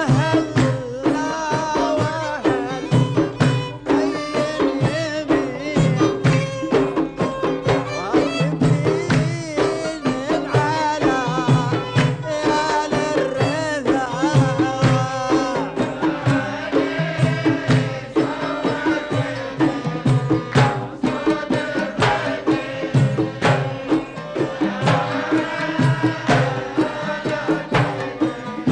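A man sings a Gulf sawt song to his own oud, with hand drums and rhythmic handclaps keeping a steady beat.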